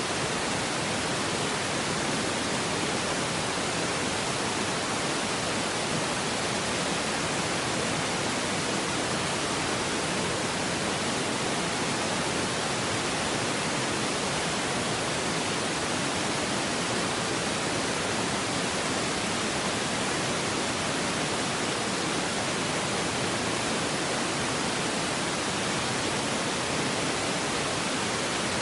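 A steady, even hiss of noise that never changes, with no other sound standing out of it.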